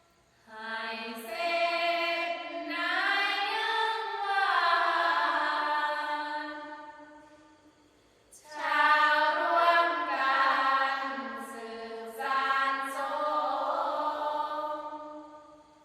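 Sorraphanya singing: a group chanting a Thai Buddhist verse in unison without accompaniment, in two long, ornamented melodic phrases with a short pause between them about halfway through.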